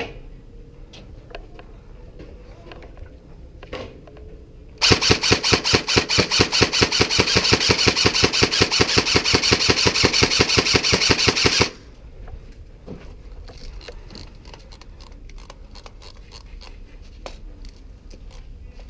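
Airsoft electric gun firing on full auto: one long burst of rapid, evenly spaced shots lasting about seven seconds, starting about five seconds in and cutting off suddenly.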